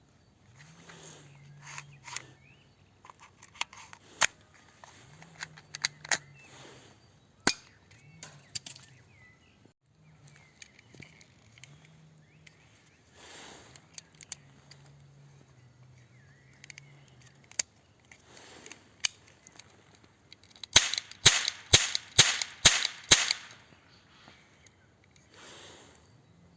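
Toy gun being handled and fired: scattered clicks and snaps from its mechanism, then a quick run of about seven sharp shots near the end, the loudest part.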